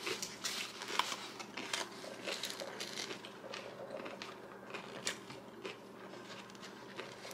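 Faint, scattered clicks and crinkles of a foam takeout clamshell and food being handled and eaten close to the microphone.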